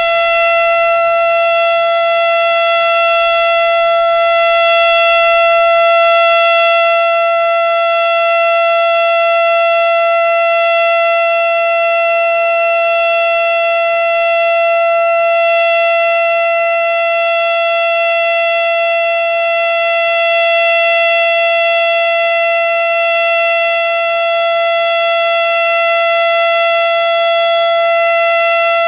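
Darley STH-10 outdoor warning siren sounding the steady Alert signal: one loud, unbroken tone held at constant pitch, with no rise or fall.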